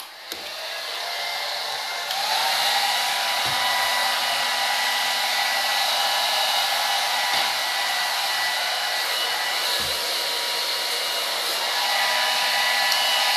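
Hand-held hair dryer blowing steadily, with a faint steady whine under the rush of air, drying a craft piece; it gets louder about two seconds in.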